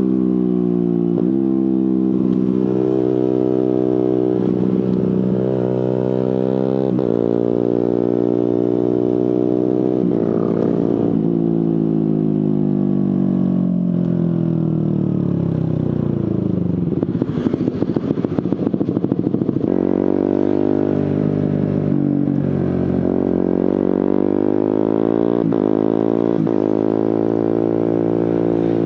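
Suzuki GSX-R150's single-cylinder engine through an aftermarket Prospeed exhaust, pulling up through the gears with a sharp break at each quickshifter upshift. Midway the revs fall away steadily as the bike slows and the exhaust crackles at low revs, then it accelerates and upshifts again.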